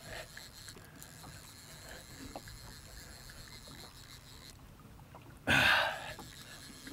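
Small boat on open sea: faint water lapping against the hull under a steady hiss, with a few light knocks. About five and a half seconds in, a sudden loud rush of noise lasts about half a second.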